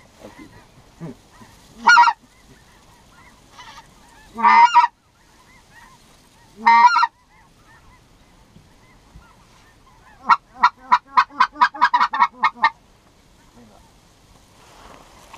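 Goose calling: three loud single calls a couple of seconds apart, then a quick run of about a dozen short clucking notes, around six a second.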